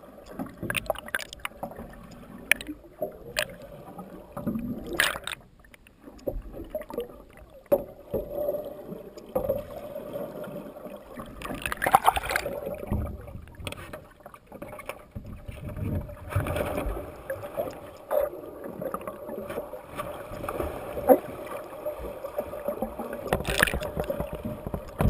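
Water sloshing and splashing around an action camera held at and below the lake surface, muffled whenever it goes under, with irregular knocks and a steady hum underneath. A larger splash comes near the end.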